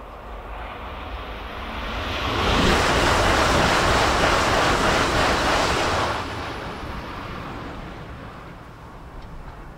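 Shinkansen bullet train passing at high speed: a rush of noise that builds over about two seconds, holds loud for about three and a half seconds, then drops off sharply and fades away.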